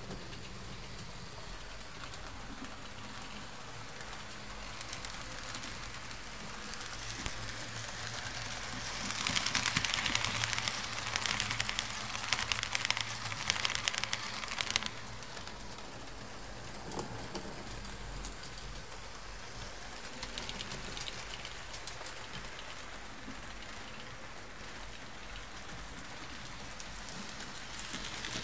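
Fleischmann H0 model train running on its track: a faint steady rolling hiss that swells, about nine seconds in, into a loud fine rattling clatter of wheels on rails with a low motor hum underneath. The clatter lasts about six seconds and then fades back.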